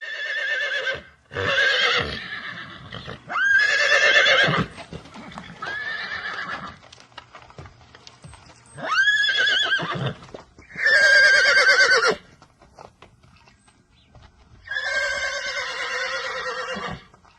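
Horse whinnying repeatedly, about seven loud calls in a row with a trembling, wavering pitch, some rising sharply at the start. The longest call comes near the end.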